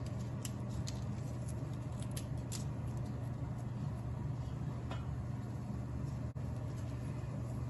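Dals, cumin and mustard seeds and dried red chilies frying in a small pan of hot oil for a tempering: a faint sizzle with scattered small pops and ticks, most of them in the first few seconds. Under it runs a steady low hum.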